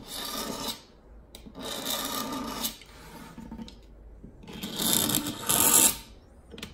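A hand tool scraping along the inside groove of a stained maple cabinet door, working old grime out of the profile. There are three strokes, the last one, near the end, the longest and loudest.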